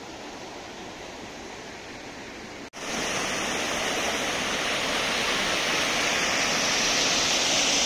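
Rushing river water: a steady flowing stream, then after a sudden cut about two and a half seconds in, the louder rush of water pouring over a small weir.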